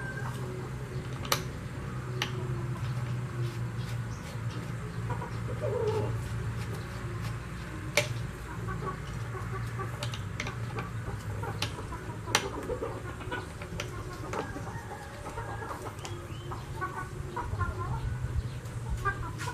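Scattered sharp metallic clicks and light knocks as hands seat a welding-wire spool on the hub of a Daiden MIGi 130 MIG welder and tighten its locking nut, over a low steady hum. Bird calls in the background.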